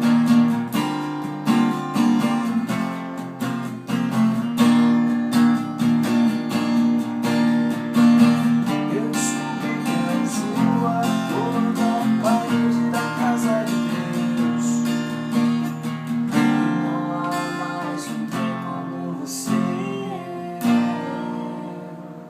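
Acoustic guitar strummed in a steady rhythm, chords ringing. The playing dies away near the end as the song finishes.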